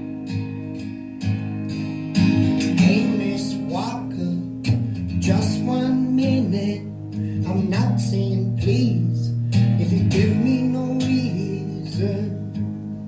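Acoustic guitar strummed live, with a young man's singing voice coming in over it about two seconds in.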